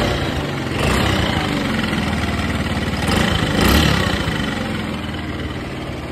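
Kymco 豪邁125 scooter's single-cylinder four-stroke engine running at idle, swelling up twice, about a second in and near four seconds in, as the throttle is blipped. The engine is noted for excessive abnormal noise and oil burning, and is due for crankshaft, cylinder and valve work.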